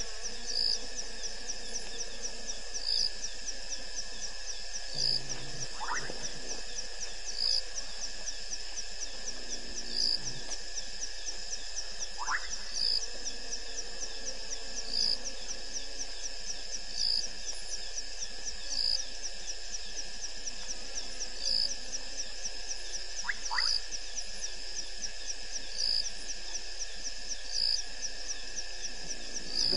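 Nocturnal frog and insect chorus. A steady high trill runs under a sharp high-pitched note that repeats about every two seconds, with three short rising whistles scattered through.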